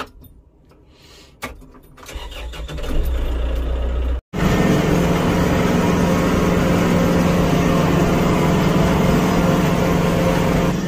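Kubota cab tractor's diesel engine starting up about two seconds in, then, after a brief cut, running steadily, heard from inside the cab.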